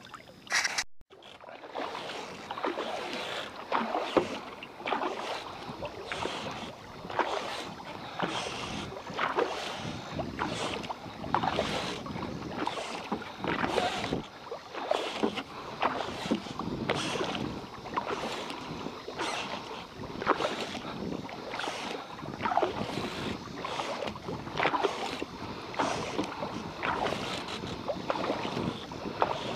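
Kayak paddling: a double-bladed paddle dips and pulls through calm water in a steady rhythm, one splashing stroke about every second on alternating sides.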